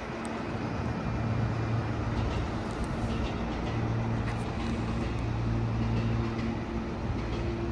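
Meitetsu 2200 series electric train standing at the platform, its onboard equipment giving a steady low hum with a couple of fixed tones that swell and fade.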